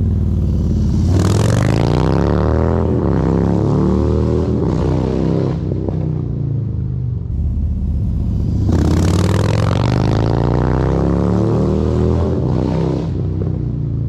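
2022 Harley-Davidson Low Rider ST's Milwaukee-Eight 117 V-twin through SuperTrapp Fat Shots 2-into-1 exhaust (24 discs, open end cap), rolling on the throttle hard in second gear as it passes, twice. Each run climbs in pitch as it accelerates, then the pitch drops as the bike goes by.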